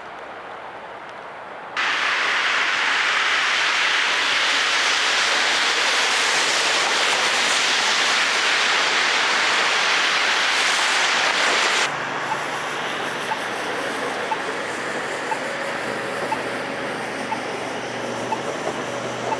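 Steady hiss of traffic and tyres on a slushy, snow-covered road, which gets much louder suddenly about two seconds in. About twelve seconds in it changes suddenly to a quieter hiss with a low steady engine hum and faint regular ticks.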